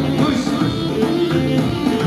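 Kurdish wedding dance music playing loudly and steadily, a melody line bending in pitch over the accompaniment.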